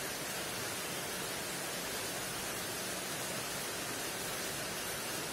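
Steady, even hiss of background noise, with no distinct sound standing out.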